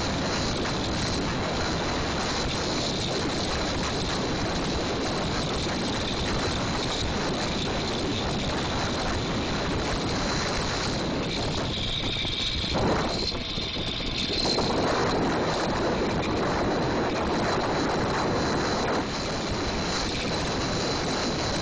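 Small gas engine of a motorized bicycle running steadily while riding, mixed with heavy wind rush on the microphone.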